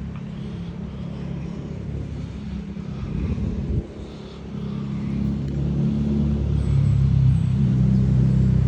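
Low engine rumble of a motor vehicle, dipping briefly just before halfway and then growing louder in the second half, with faint high chirps above it.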